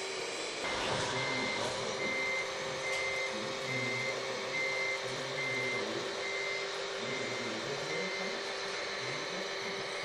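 Reversing alarm of a radio-controlled Liebherr 736 bulldozer model beeping at a steady pace, about four beeps every three seconds, starting about a second in, over a steady mechanical hum; the beeping signals the dozer is backing up.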